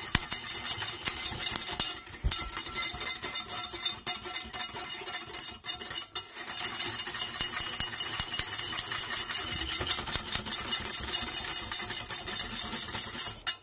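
Wire whisk beating egg yolks into a sabayon in a stainless steel saucepan, the wires scraping rapidly and continuously against the pan, with a few momentary breaks.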